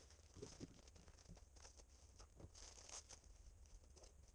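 Faint rustling of plastic-wrapped first-aid packets and light knocks of small items being gathered up off a cloth-covered table, with a brief crinkle about three seconds in.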